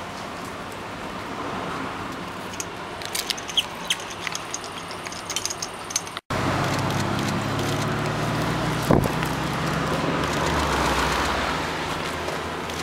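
Diesel railcar engine running as a low steady drone, with one sharp knock about nine seconds in. Before a cut about six seconds in there is only a faint outdoor hush with short high chirps.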